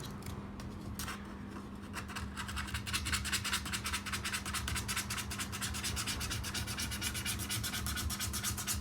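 Rapid back-and-forth scraping as old battery adhesive is cleaned off the back of an iPad 4's frame, several strokes a second, with brief pauses about a second in.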